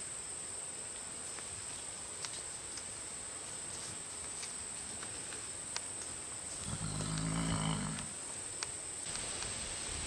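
A Fjord horse gives one low-pitched call lasting about a second and a half, a little past the middle. A steady high insect trill runs underneath.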